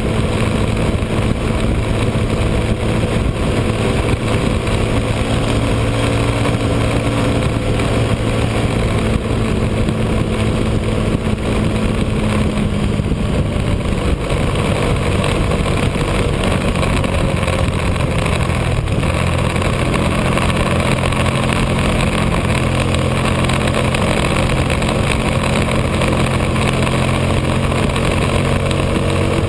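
Motorcycle engine running at road speed, with wind rushing over the microphone. The engine note shifts pitch about twelve seconds in and again a few seconds later.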